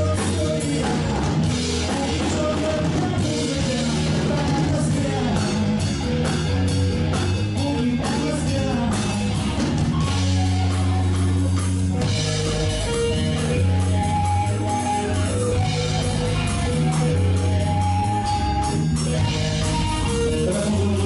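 Blues-rock band playing live: electric guitar over bass guitar and a drum kit, loud and steady.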